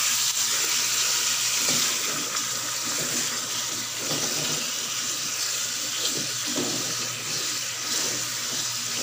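Raw beef chunks sizzling in hot oil in a pressure cooker as they are stirred and browned with a spatula: a steady frying hiss with a few faint scrapes.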